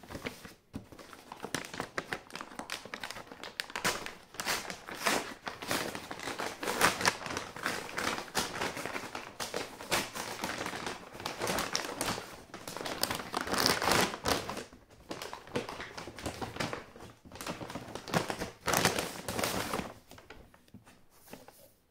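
Brown kraft-paper mailing bag crinkling and rustling as it is handled and pulled open by hand, in uneven bursts that die down near the end.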